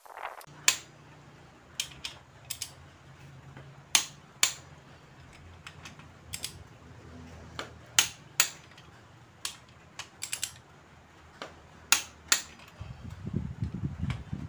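Sharp metallic clicks, a dozen or so at uneven intervals and some in quick pairs, from a click-type torque wrench breaking over as each crankshaft main bearing cap bolt reaches its set torque of about 5.5 kg·m. A low steady hum runs underneath.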